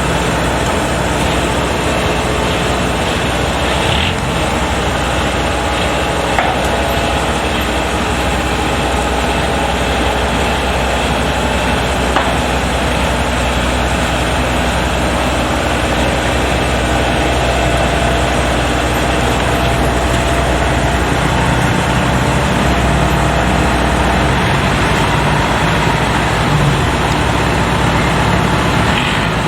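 Kubota DC105X combine harvester running steadily, a loud continuous engine and machinery drone with no breaks.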